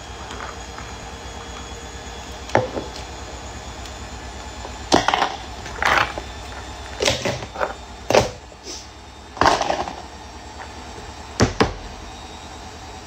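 Ice cubes knocking and clattering against plastic cups and the countertop: about nine sharp knocks, irregularly spaced, some with a short rattle, over a low steady hum.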